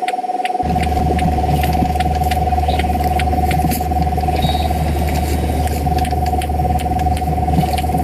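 Robot motors running with a steady whine over a low hum, with many irregular sharp clicks from the moving mechanism.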